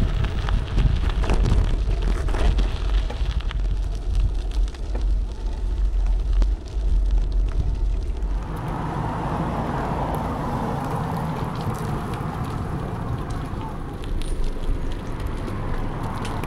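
A bicycle ridden over a gravel forest road: tyres crunching on the gravel, small rattles, and heavy wind buffeting the microphone. About eight seconds in this gives way to a steadier, even hiss of rolling on smoother ground.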